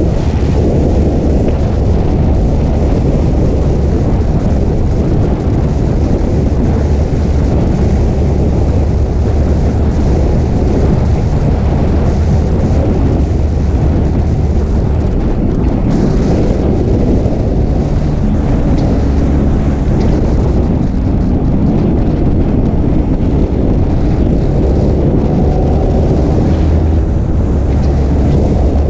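Wind rushing over the microphone of a camera on a Yamaha sport motorcycle riding at steady road speed, with the bike's engine running underneath. The rumble is loud and unbroken, with no clear change in speed.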